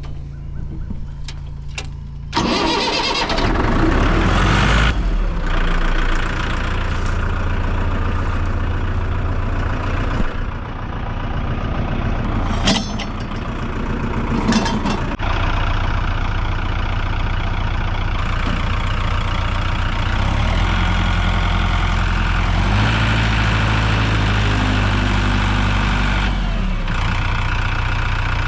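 A motor vehicle engine revving up sharply about two seconds in, then running steadily with its pitch rising and falling several times. Two sharp knocks are heard about halfway through.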